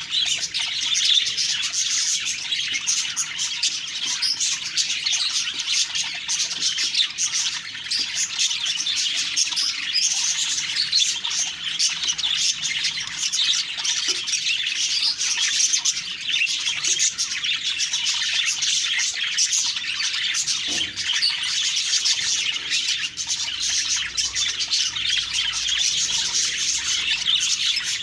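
Budgerigars chirping and warbling continuously, a dense overlapping chatter of many quick high calls with no pauses.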